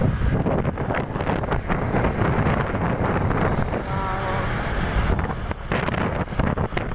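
Wind buffeting the microphone through a moving vehicle's open window, over the vehicle's running road noise. A brief wavering tone sounds about four seconds in.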